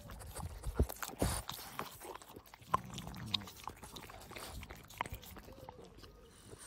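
French bulldogs licking at a frozen treat on a stick: wet tongue laps and lip smacks coming at irregular intervals.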